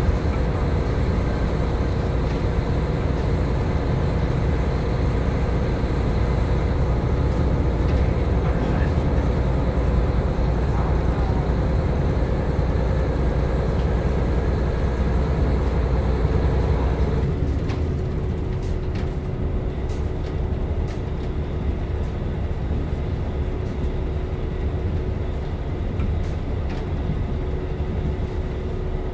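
KiHa 40 diesel railcar's engine idling with a steady low rumble while the car stands at a station, heard from inside the car. About two-thirds of the way through, the higher noise drops away and a steady hum remains.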